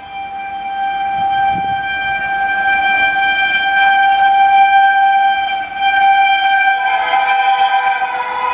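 WAP-7 electric locomotive sounding its horn in one long, steady blast as it approaches at speed. A second horn tone joins about seven seconds in, over the rising noise of the oncoming train.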